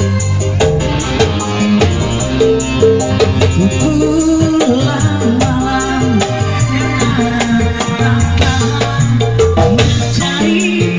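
Live band music played loud through loudspeakers: electronic keyboard and hand drums with a steady rattling shaker-like percussion, and a man singing into a microphone.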